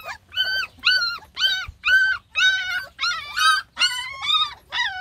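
Puppy whining: a steady run of short, high-pitched whines, about two a second.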